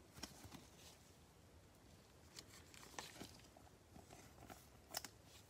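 Faint, scattered clicks and light slides of glossy chrome baseball cards being flipped one by one through a stack in gloved hands. The sharpest clicks come about three and five seconds in.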